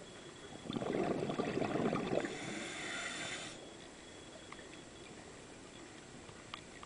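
Scuba diver's exhalation from the regulator: a rush of bubbles crackling and gurgling for about three seconds starting near the first second, tailing into a higher hiss, heard through the underwater camera housing.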